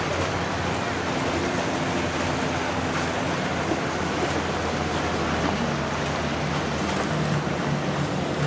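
Powerboat engines running with a steady low hum, under a wash of wind and waves.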